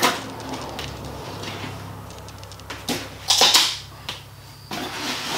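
Plastic packing strap on a cardboard box snapping with a sharp crack, then a few brief scraping and rustling sounds as the strap is pulled off and the box is handled.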